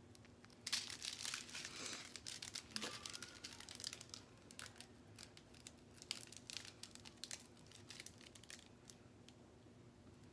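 Small plastic bags of diamond-painting drills crinkling and rustling as they are handled, with scattered light crackles that are busiest in the first few seconds and thin out after.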